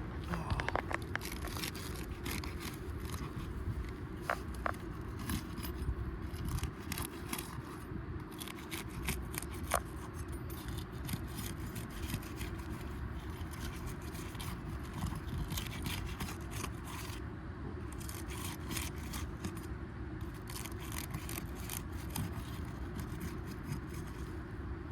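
Asphalt shingles being worked loose with a roof snake seal-breaking bar: repeated scraping and crackling as the shingle seal strips are broken, with scattered sharp clicks, over a steady low rumble.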